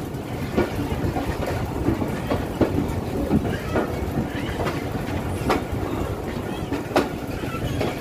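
Moving passenger train heard from an open coach doorway: a steady rumble of wheels and running gear, with irregular sharp clanks as the wheels pass over rail joints.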